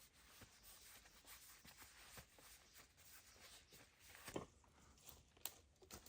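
Faint rubbing and scraping with scattered small clicks, and a couple of sharper soft knocks about four and five and a half seconds in.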